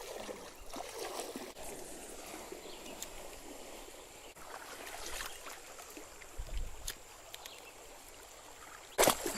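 Creek water flowing steadily, with a few faint clicks and a short, sharp noise near the end.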